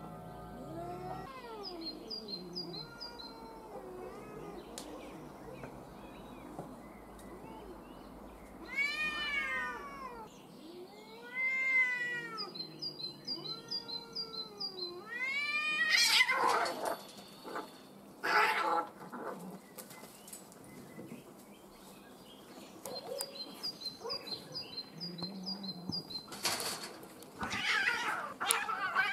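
Two male cats in a fight standoff, caterwauling at each other in long wails that rise and fall in pitch, several in a row through the middle, followed by short harsh noisy bursts later on. A bird chirps in a repeated high phrase in the background.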